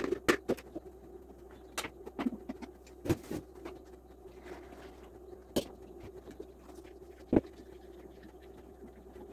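Scattered knocks and clinks of kitchen utensils: a small pot and a strainer being handled and tapped on a counter, with a wooden spoon working juice pulp through the strainer. A steady low hum runs underneath, and the sharpest knock comes about seven seconds in.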